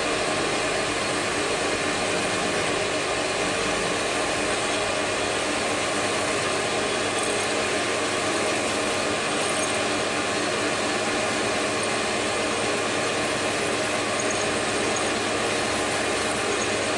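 Metal lathe running steadily with a constant machine whine while an 8 mm twist drill, fed from the tailstock, bores into the spinning aluminium stock.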